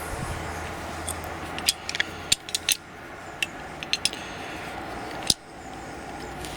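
Irregular sharp metallic clicks and taps, about ten of them, as the rusted steel body and seized threaded rear cap of a Soviet grease-gun oiler are gripped and twisted by hand. The cap does not turn because its threads are rusted solid.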